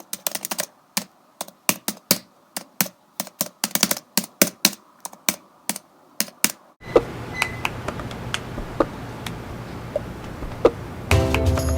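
Typing on a Logitech Combo Touch iPad keyboard case: quick runs of key clicks for about seven seconds, then sparser clicks over a steady hiss. Music starts near the end.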